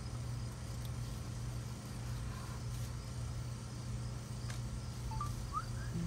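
Steady low background hum, like distant road traffic, with a few faint short rising chirps near the end.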